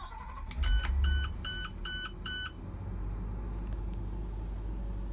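PSI 8.8L V8 gas engine of a 2019 IC CE school bus starting, then settling into a steady, quiet idle. A dashboard warning chime beeps five times as it catches.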